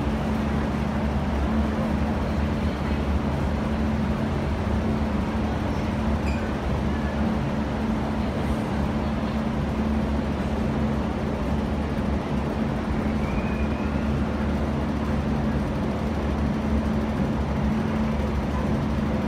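Steady low mechanical hum of an underground metro platform, with a few constant low tones over a broad rumble.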